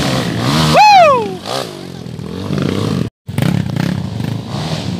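Dirt bike engine running and revving as the bike climbs a dirt slope. About a second in a loud high shout rises and then falls in pitch over the engine, and just after three seconds the sound cuts out for a moment.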